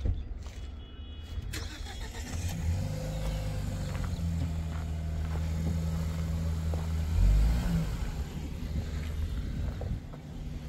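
A motor vehicle's engine running: a low, steady hum that comes in about two seconds in, is loudest around seven seconds, then dies away.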